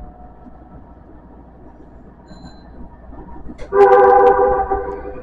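Subway train horn sounding once, a steady multi-note chord that starts suddenly near the end and lasts about a second and a half, over the quiet rumble of the train in the tunnel.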